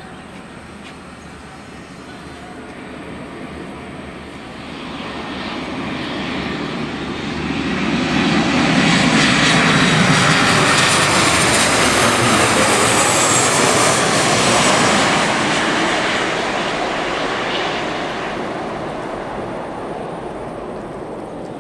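Jet airliner flying low overhead: its engine roar swells gradually to a loud peak about halfway through, with a high whine on top, then slowly fades as it moves away.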